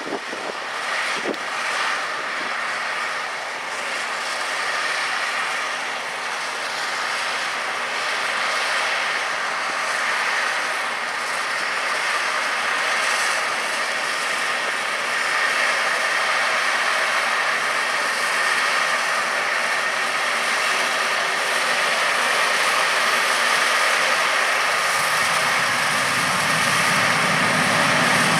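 John Deere 7760 cotton picker running as it harvests, a steady machine din with a few held tones, growing louder toward the end as it comes closer.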